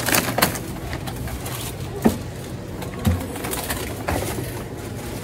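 Plastic packaging crinkling and donated pet-supply packs knocking against a cardboard barrel and wire shopping carts as they are unloaded, in short irregular clatters over a low steady hum.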